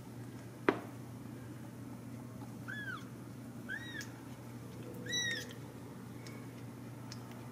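Young Ragdoll kittens mewing: three short, high mews about a second apart, each rising and then falling in pitch. A single sharp click comes less than a second in and is the loudest sound.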